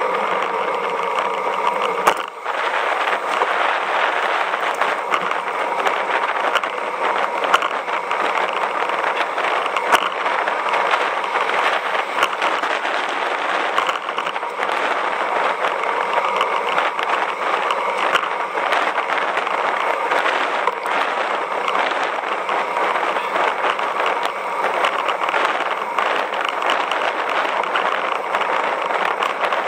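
Road bike rolling along asphalt: a steady rush of tyre and wind noise, with small scattered clicks from bumps in the road and a sharper knock about two seconds in.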